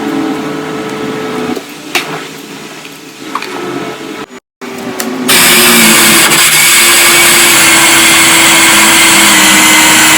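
An espresso machine's steam wand blasting a loud, steady hiss from about five seconds in, purged open as part of cleaning. Before it, a machine hum with a couple of clicks.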